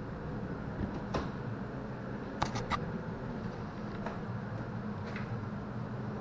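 Light clicks and knocks of a wall-mounted cabinet door being handled and shut over a steady low room hum. The loudest is a quick run of three sharp clicks about two and a half seconds in, with fainter ticks after.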